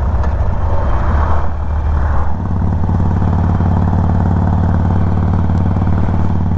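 Harley-Davidson Sportster 1200 Forty-Eight's air-cooled V-twin running. About two seconds in, the noisier low sound changes to a steady, even engine note.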